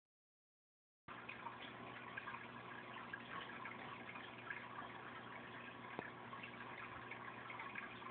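Aquarium water bubbling and splashing at the surface, where a stream of air bubbles breaks, a steady patter of small splashes with a faint low hum under it, starting about a second in. A single sharp click comes a few seconds later.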